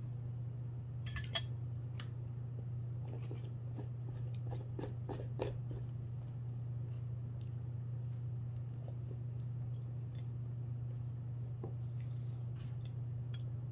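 Eating at a meal table: scattered small clicks and clinks of utensils against dishes and chewing, busiest in the first half, over a steady low hum.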